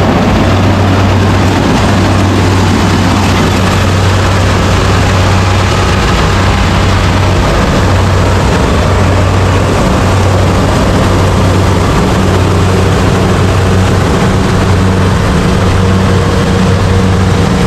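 Rice combine harvester running steadily: a constant low engine hum with a dense rushing noise over it.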